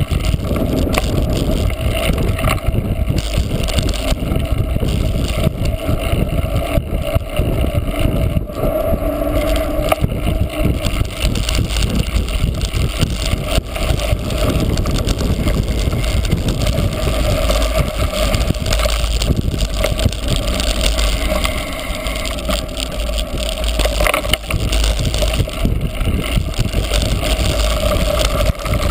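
Steady rush of wind and riding noise on a cyclocross bike's onboard camera microphone, with many small knocks and rattles from the bike over rough ground.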